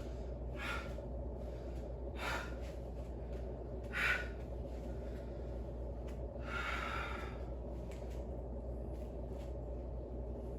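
A person breathing hard from exercise: four loud breaths a second or two apart, the last one drawn out longer.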